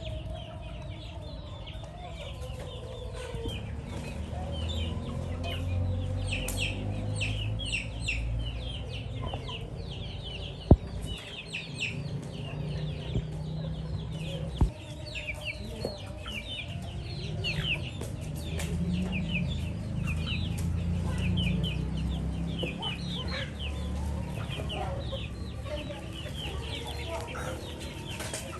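A flock of chickens clucking and calling, with many short, high-pitched calls crowding over one another throughout. Two sharp clicks come about halfway through.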